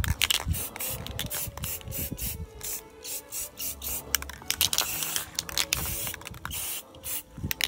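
Aerosol spray-paint can hissing in short bursts, with quick clicks and knocks in between.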